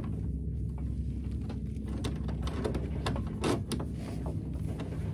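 A sailboat's sheet being hauled in and worked around a cockpit winch: irregular clicks and short rubbing and scraping sounds, most of them in the second half, over a steady low rush of wind and water.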